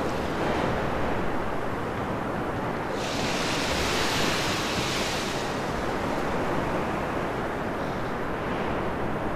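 Steady rushing noise like surf or wind, with a brighter hiss coming in abruptly about three seconds in and fading out some two seconds later.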